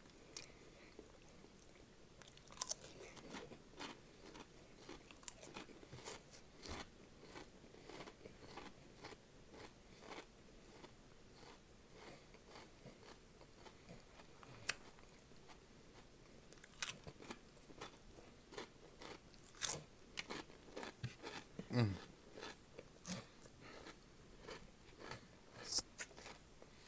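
Close-up crunching and chewing of Flamin' Hot Cheetos and onion rings: a string of sharp, irregular crunches, with a short low "mm" from the eater about three-quarters of the way through.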